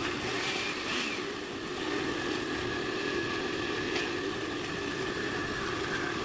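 Red Osterizer blender running steadily, its motor whirring as the blade churns frozen banana chunks and cream into banana ice cream.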